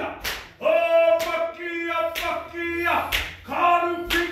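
Māori haka: a group of performers chanting in unison on long held notes, with a sharp body slap or stamp about once a second.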